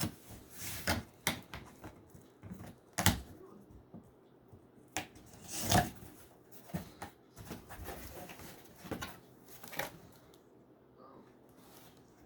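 Cardboard shipping box and packaging being opened and handled: irregular scrapes, knocks and rustles. The loudest come about three and six seconds in, and they die away near the end.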